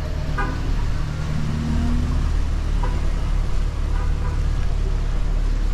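A motor vehicle's engine running close by in street traffic: a steady low rumble with a slight rise in pitch about two seconds in. Faint voices come through here and there.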